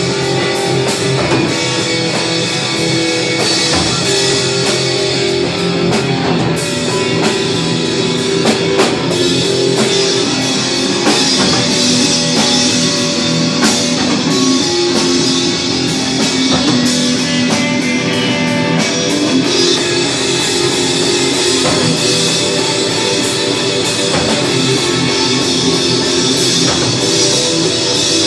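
Noise-punk band playing live: two electric guitars, bass guitar and drum kit, loud and continuous without a break.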